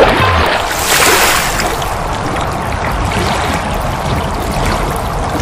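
Rushing-water sound effect: a hit right at the start, a swell of rushing about a second in, then steady rushing, splashing water.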